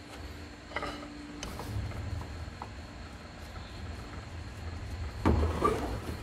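Small porcelain jewellery box with a gilt metal rim being handled: a few light clicks, then a louder clatter of porcelain and metal about five seconds in.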